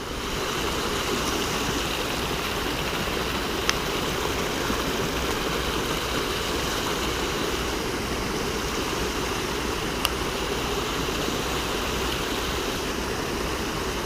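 Rushing floodwater of a rain-swollen stream, a steady loud roar of water, with two faint clicks about four and ten seconds in.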